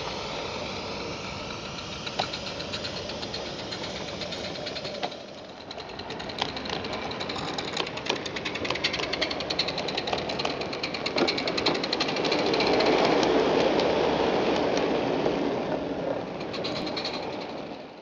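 Roundhouse Fowler live steam garden-railway locomotive running with a coach: a fast run of exhaust beats and clicks over a steady hiss, louder about two-thirds of the way through and fading out at the end.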